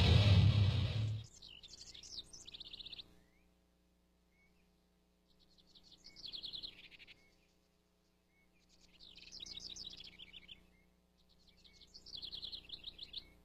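A songbird sings four short, rapid trilled phrases a few seconds apart. About a second in, a loud rushing noise cuts off abruptly just before the first phrase.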